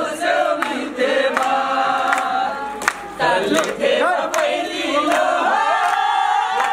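A group of people singing together in unison, with scattered hand claps.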